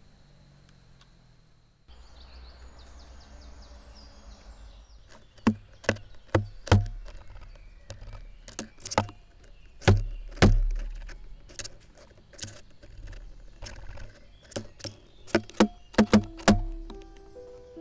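An irregular series of sharp knocks, each with a dull low thud, starting about five seconds in and at times coming several a second. Plucked-string music begins near the end.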